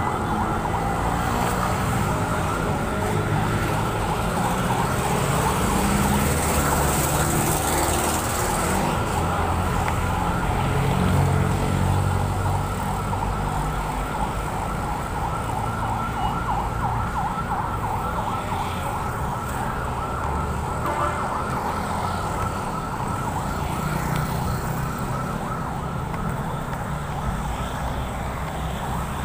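Road traffic passing, with a siren warbling rapidly and steadily over it.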